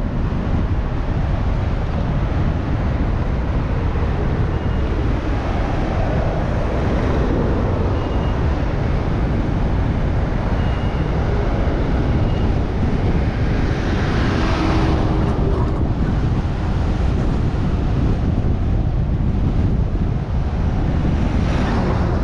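Wind buffeting the microphone of a helmet-mounted GoPro Hero9 on a moving bicycle: a steady low rush, with louder swells of noise about 14 seconds in and again near the end.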